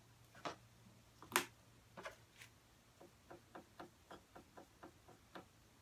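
Small sharp clicks as a plastic bottle of acrylic paint is handled and set down on a board, then a run of light quick taps, about five a second, as a paintbrush is dabbed in a puddle of paint on the board.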